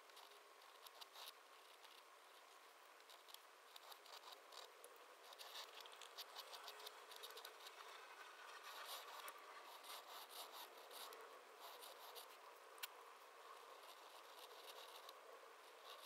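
Faint, irregular scratching of a flex-nib dip pen's nib drawing ink strokes across paper, with one sharper tick late on.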